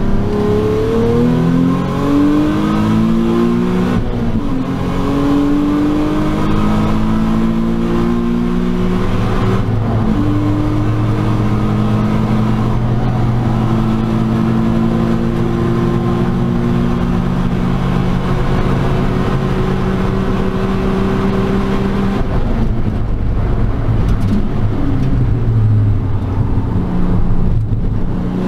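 Nissan 350Z's 3.5-litre VQ35HR V6 at full throttle, heard from inside the cabin, its note rising through the gears with upshifts about four and ten seconds in. It then holds a long, slowly climbing pull at high speed before dropping off as the car lifts and brakes hard near the end.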